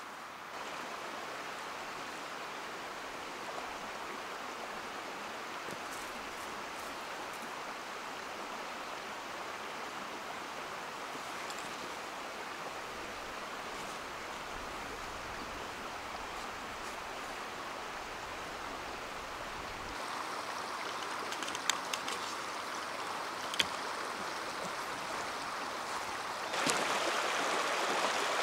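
Stream water running steadily, growing louder in two steps, the second near the end, with a few faint clicks in the second half.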